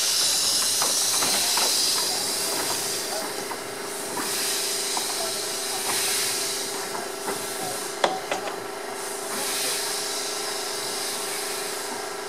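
Small Orenstein & Koppel narrow-gauge steam locomotive moving off slowly, steam hissing from around its cylinders in pulses that swell and fade. Light clanks come from the running gear and track, with one sharp knock about eight seconds in.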